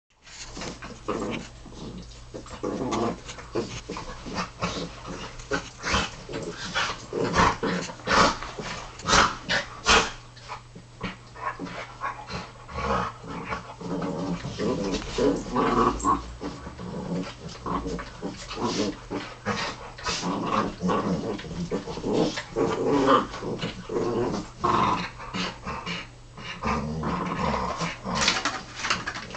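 Jack Russell terrier and springer spaniel play fighting: playful dog growling, broken by irregular scuffling and scrabbling on a shaggy blanket.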